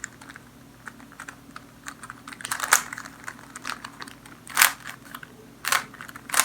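Rubik's Cube layers being twisted by hand: a run of irregular plastic clicks and clacks, with a few sharper, louder clacks in the second half.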